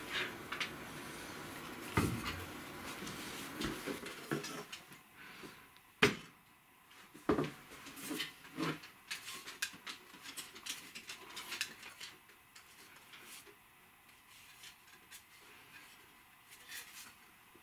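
Handling noise of a handmade wooden buck saw: the wooden frame bars knocking and clattering together as the saw is worked and folded, with several sharp knocks in the first half and lighter clicks later.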